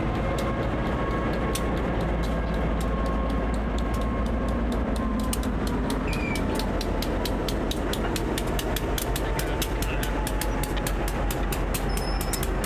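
Diesel-hauled freight train on the move: a steady low locomotive rumble with a rapid run of light, sharp clicks from the rolling train that come more thickly in the second half.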